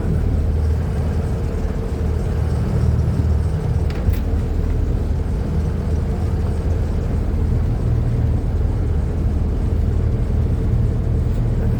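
Motor water taxi's engine running steadily at cruising speed, a deep even drone with a constant hum over it.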